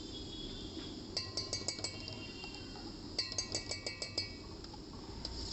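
A steel spoon clinks rapidly against a steel pot in two quick runs of ringing taps, knocking butter off the spoon into the pot.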